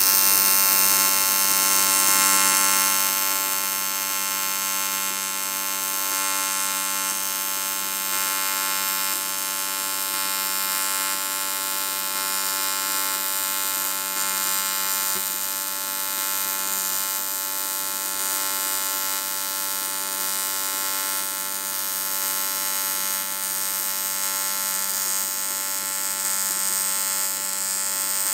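AC TIG welding arc on aluminium alloy, buzzing steadily as a bead is laid with filler rod. It is a little louder for the first three seconds, then holds even.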